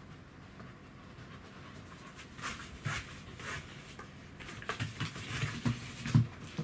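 A Pembroke Welsh corgi panting close by, then a run of knocks and scuffs on the floor in the last couple of seconds, loudest near the end, as he turns and moves off. His gait is weakened by degenerative myelopathy.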